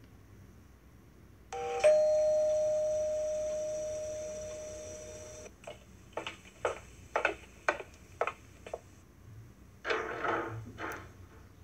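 A two-note doorbell-like chime, a short higher note and then a long lower note that fades away over about four seconds. It is followed by a run of about nine quick, sharp knocks, then a brief indistinct sound near the end.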